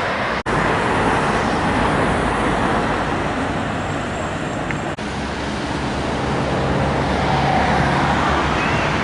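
Steady road traffic noise, with a vehicle engine running close by for a few seconds in the middle. Two brief dropouts, about half a second in and about five seconds in, where the recording is cut.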